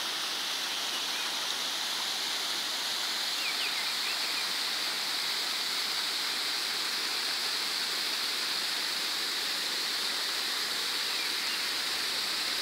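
A waterfall pouring down a rock face into a pool, with a shallow stream running over stones: a steady, unbroken rush of water.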